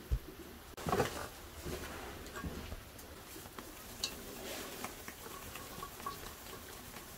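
Faint handling noises of hands working a sticky dried-fruit and walnut mixture in an enamel bowl: soft rustles and small clicks, with a soft knock about a second in.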